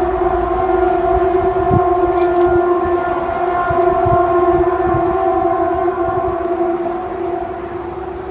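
A loud, steady, horn-like drone holding one pitch with several overtones, the eerie 'strange sound in the sky' type of hum; its upper tones thin out after about six seconds. Low wind rumble lies beneath it.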